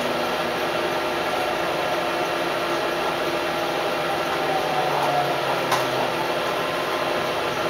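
Steady hum and rumble of an Adelaide Metro 3100 series diesel railcar, heard from inside the cab as it runs along a station platform. There is a single sharp click a little under six seconds in.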